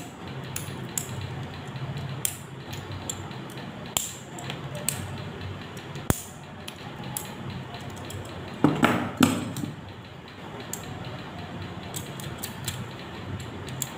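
Pliers nibbling away the edge of a scored photochromic glass lens: scattered sharp little clicks and crunches of glass chipping off, with one louder noise about nine seconds in, over a steady low hum.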